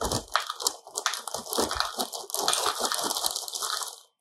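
Dry Apple Pie Toast Crunch cereal squares pouring from the box's plastic liner bag into a bowl, a steady rattling patter of pieces that stops abruptly just before the end.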